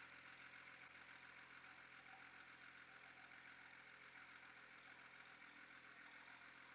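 Faint, steady idle of a BMW N54 twin-turbo straight-six engine, left running for the dual-clutch transmission fluid-level check.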